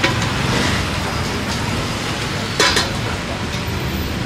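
Steady traffic noise from a busy city street, with a short sharp clatter about two and a half seconds in.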